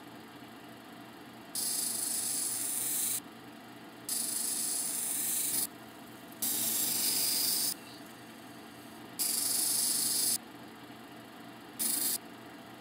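A tiger eye cabochon on a dop stick pressed against a wet, spinning 600-grit diamond wheel in five separate grinding passes, each a high scraping hiss that starts and stops sharply, the last one short. The cabbing machine's motor runs steadily between passes.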